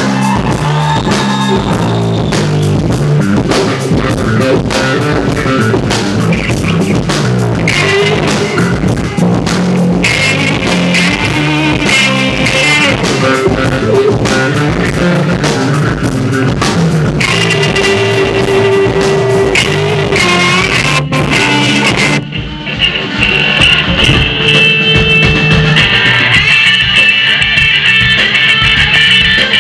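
Live rock band playing loud: electric guitar, bass guitar and drum kit. About 22 seconds in the playing breaks off briefly and comes back with less cymbal, the guitar carrying on.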